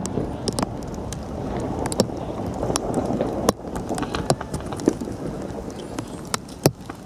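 Scattered sharp firecracker pops, a few a second, over a low rumbling din that eases off about halfway through, as a burst of fireworks tails off.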